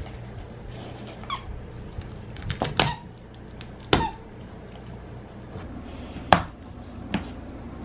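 Squeaker inside a plush stuffed chicken dog toy squeaking in short, sharp bursts as a pit bull chews and tugs at it, about five times, the loudest a little after six seconds in.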